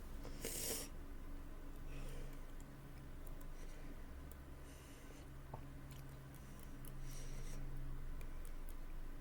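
A person's quiet breathing: a few short breaths out, about one every two and a half seconds, the first the strongest. A low steady hum runs beneath.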